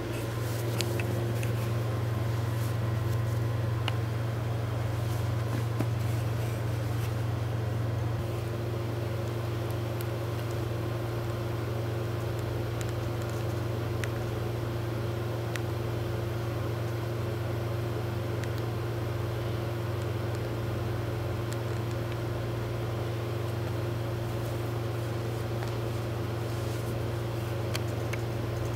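Steady low droning hum, with a faint higher steady tone that grows stronger about eight seconds in and a few faint clicks.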